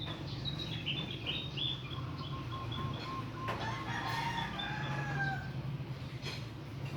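Small birds chirping, then a rooster crowing once for about two seconds, starting about halfway through.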